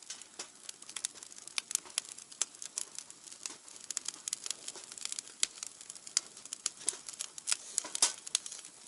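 Wood fire crackling in a fire grill: irregular sharp pops and snaps over a faint hiss, with one louder pop about eight seconds in.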